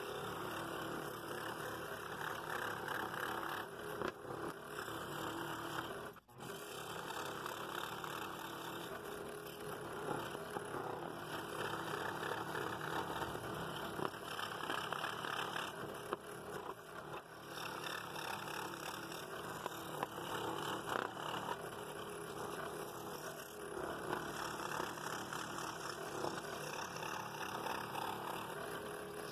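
Scroll saw running with a number 5 blade, cutting a small star shape through a stack of hardwood a little over half an inch thick. The steady sawing noise breaks off briefly about six seconds in.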